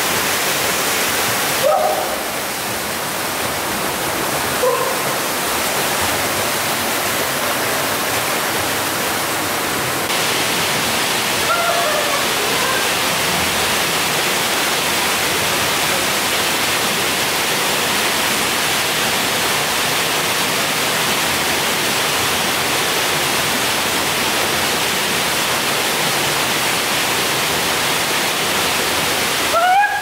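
Steady rush of a waterfall pouring into a pool, with a few short distant shouts from swimmers.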